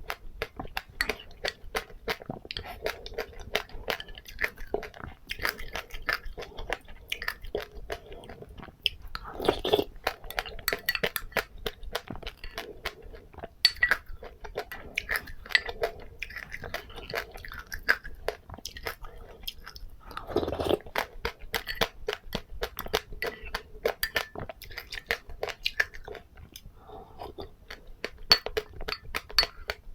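Close-up crunching and chewing of seeds in a person's mouth: a quick, dense run of small crisp cracks, with a couple of louder, fuller mouth sounds about a third and two-thirds of the way through.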